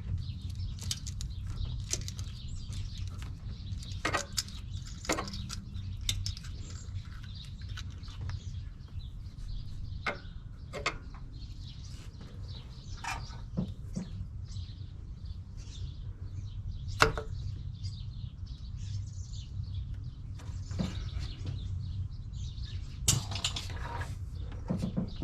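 Scattered light clicks and knocks of hand work as the coolant hose and thermostat housing are fitted back onto the engine, sharpest about two thirds of the way in and near the end, over a steady low hum.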